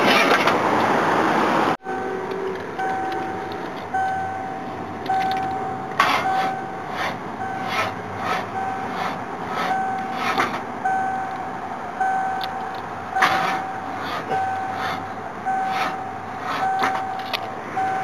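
A loud rushing noise for under two seconds that cuts off abruptly, then an electronic warning beep repeating steadily a little under twice a second, with a few sharp knocks and clatters over street noise.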